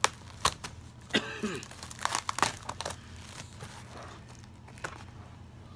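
Packaging crinkling and crackling as it is handled and worked at to get it open, in a handful of sharp crackles and snaps.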